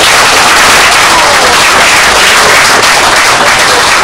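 Audience applauding loudly: dense, steady clapping from many hands.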